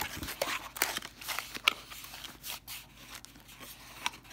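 A cardboard box being opened by hand: a run of short, irregular scrapes and tears as its flaps are pulled apart.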